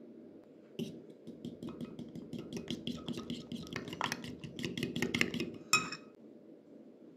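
Metal fork whisking egg and flour batter in a glass bowl: rapid clinks of the tines against the glass for about five seconds, ending with one louder clink.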